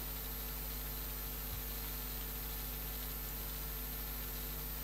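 Steady background hiss with an electrical mains hum and a faint high whine. There is one faint low bump about one and a half seconds in.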